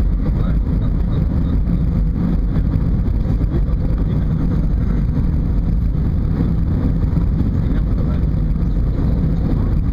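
Steady low rumble of an Airbus A320 heard from inside the passenger cabin: engine and airflow noise, even throughout with no distinct bumps or changes.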